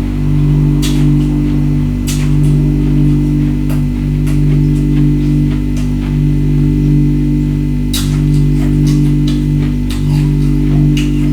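Background music with low, sustained bass notes that change every second or two. Over it come short, sharp crunches at irregular intervals: ice being bitten and chewed.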